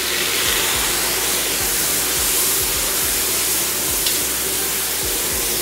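Water poured into hot oil and fried onion-tomato-spice masala in a large kadhai, sizzling hard as a loud, steady hiss with steam. It is the rinse water from the jar the spinach was ground in.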